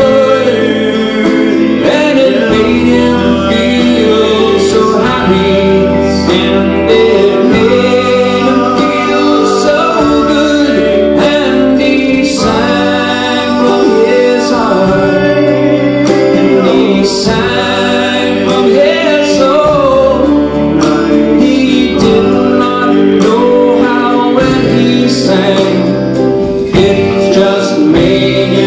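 A live band playing a country-pop song: acoustic guitar, fiddle, keyboard and drum kit, with a vocal line at times.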